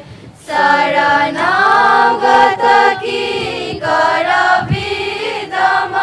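A group of students singing a welcome song together in chorus, holding long notes. The singing breaks off briefly at the start, then carries on.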